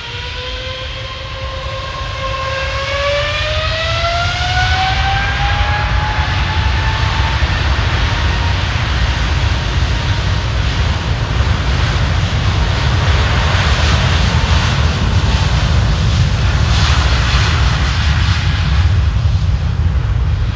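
Boeing 777's twin GE90 turbofan engines spooling up to takeoff thrust: a whine rising in pitch over the first several seconds, then a loud, deep jet noise that grows as the airliner accelerates down the runway.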